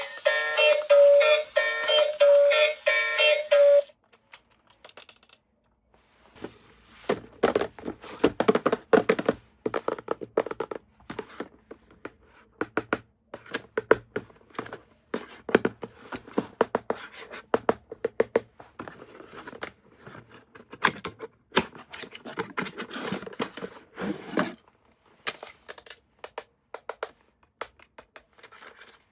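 An electronic toy's tinny tune plays and stops abruptly about four seconds in. After a short pause, a long irregular run of small clicks, taps and rustles follows: plastic toys and packaging being handled.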